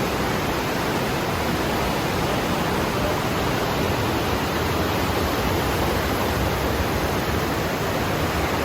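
The Aare river rushing through a narrow rock gorge: a steady, unbroken rush of fast whitewater.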